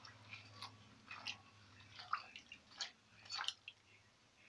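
A spoon stirring soaked chickpeas, cut onions and water in a pressure cooker: faint, scattered wet squishes and light clicks, a dozen or so in a few seconds.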